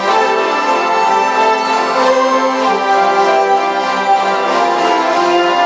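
A group of hurdy-gurdies playing together: held drones under a melody that moves from note to note.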